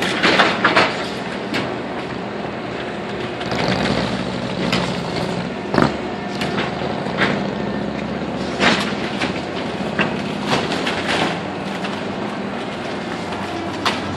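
Caterpillar 315C hydraulic excavator's diesel engine running steadily as its claw tears down a building. Wood splinters and debris crashes several times over the engine, loudest about six and nine seconds in.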